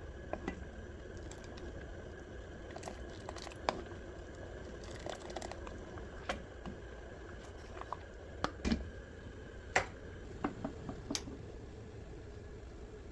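Thick tangerine jam simmering in a stainless steel pot as it is stirred with a wooden spoon. Irregular pops and soft plops from bursting bubbles and the spoon sound over a steady low hum.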